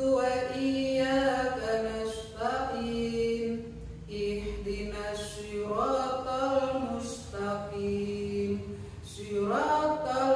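A woman's voice chanting an Arabic prayer in a slow, melodic recitation, holding long notes with gliding rises in pitch.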